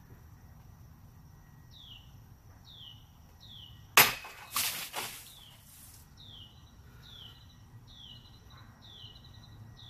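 A Kriegsmesser blade cuts through a target in a single sharp crack about four seconds in. Smaller noisy knocks follow over the next second or so.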